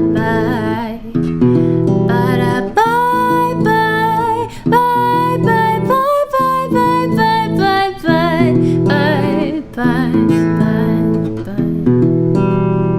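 Strummed acoustic guitar playing an R&B chord progression, with a woman's voice singing over it in long, wavering, bending notes.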